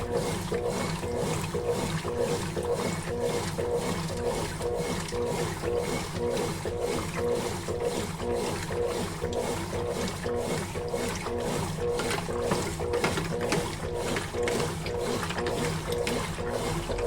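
Consul Facilite 11 kg washing machine agitating a load, its motor humming with a steady, regular pulsing rhythm of a few beats a second as it churns the clothes.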